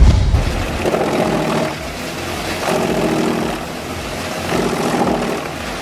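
Heavy wood-processing machinery running, with a loud low thump at the start, then engine and cutting noise swelling and easing about every two seconds.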